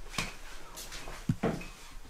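A few short knocks and thuds, about half a second apart, like handling or stepping on wooden objects.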